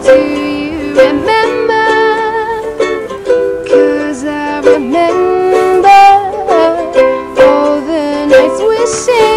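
Background music: a light tune with a melody line over a steady rhythm.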